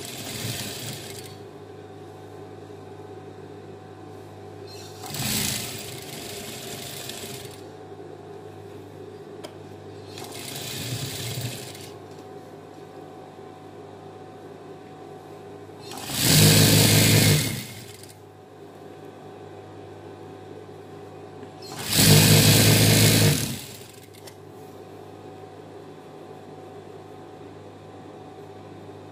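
Industrial lockstitch sewing machine stitching a fabric belt in short runs: two brief soft runs, then two louder runs of about two seconds each, over a steady low hum.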